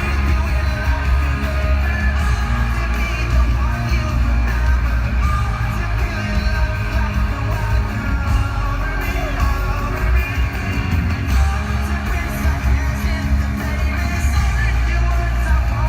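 Live pop-rock band playing through a concert PA, with acoustic guitar over heavy bass and an audience yelling and singing along, heard from within the crowd.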